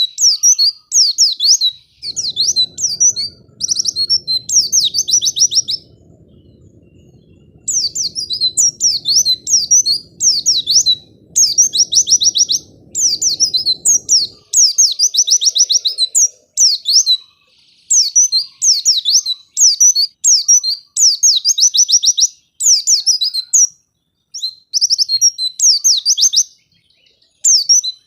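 White-eye (pleci) singing a fast, high twittering song in phrases about a second long, with short breaks between them and one longer pause near the start.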